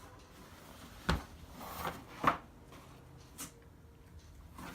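Packaging and a boxed item being handled: three short knocks, with a soft rustle between the first two.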